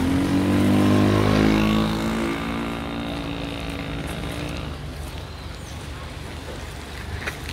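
A motor vehicle driving past close by, its engine note loudest about a second in and dropping slightly in pitch as it moves away, then fading into street noise.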